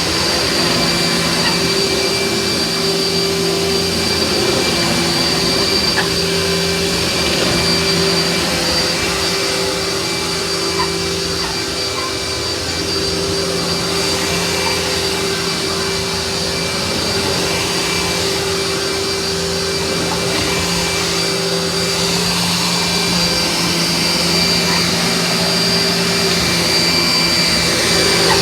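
Vacuum cleaner running steadily, its motor giving a constant high whine over a rushing airflow, the level swelling and dipping a little as it is pushed over the floor.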